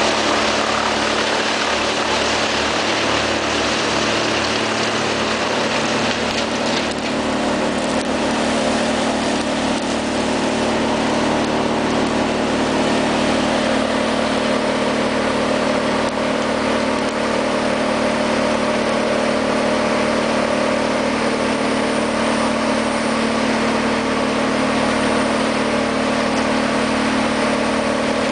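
Diesel engines of heavy forestry machines, among them a grapple skidder, running steadily with a constant hum.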